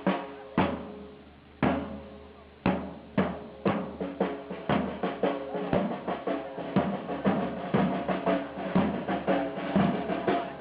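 Marching side drums with rope-tensioned shells beating a parade rhythm. Single ringing strokes come about a second apart, then quicken into a dense beat of several strokes a second from about four seconds in.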